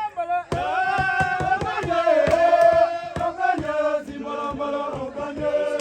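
A group of villagers chanting and singing together, with a steady beat of sharp strikes under the voices, starting about half a second in.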